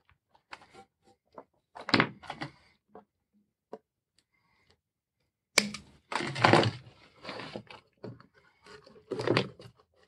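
Hands handling parts at a workbench: scattered knocks and clicks, with a louder rustling, scraping stretch a little past the middle and another shorter one near the end, as a corrugated plastic hose is moved about and an air pump is pushed into a plywood housing.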